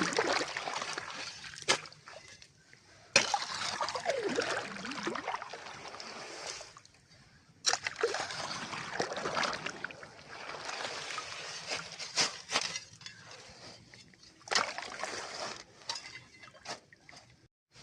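Water splashing and sloshing as trees are watered, coming in several separate bursts that start abruptly, with short pauses between them.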